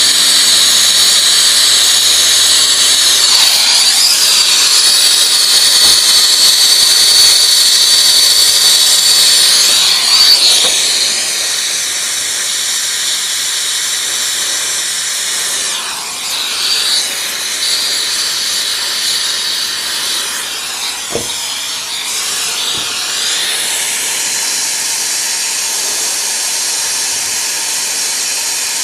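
A brazing torch flame hissing steadily as copper refrigerant pipe is heated and brazed onto the compressor line. The hiss drops to a lower level about ten seconds in.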